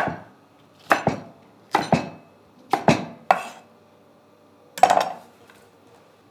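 Chef's knife chopping fresh red chillies on a wooden chopping board: sharp knocks of the blade on the board at an uneven pace, often in quick pairs about once a second, the loudest pair about five seconds in.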